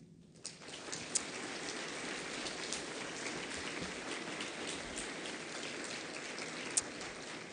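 Audience applauding: a steady patter of many hands clapping that starts about half a second in and holds at an even level.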